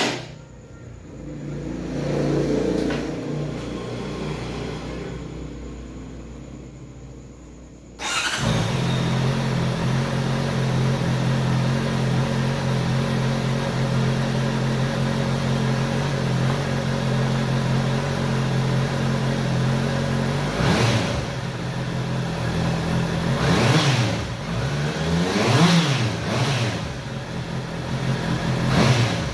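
Vehicle engine through its stock exhaust: after a quieter stretch the engine note comes in suddenly about eight seconds in and idles steadily. Near the end the throttle is blipped several times, each rev rising and falling.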